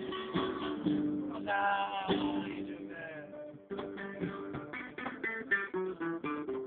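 Acoustic guitar playing: ringing chords at first, then a quick run of short picked notes from about halfway.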